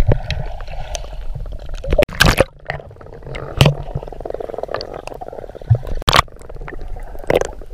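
Underwater sound picked up through a GoPro's waterproof housing: muffled water movement and bubbling from a swimmer, with a few sharp clicks and knocks.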